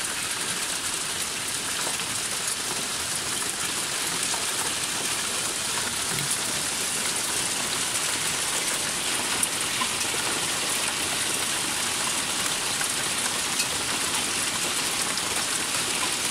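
Steady hail falling and rattling on paving, gravel and shed roofs: a dense, even patter with a sharper tick now and then.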